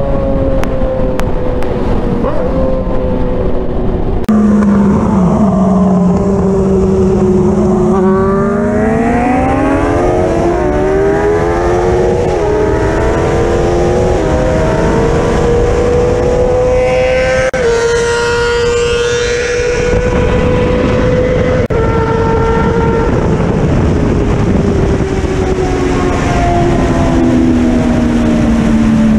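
Inline-four sport-bike engine accelerating hard at highway speed, its pitch climbing in steps through several quick upshifts. It then holds a steady pitch and slowly eases off, with wind rushing throughout.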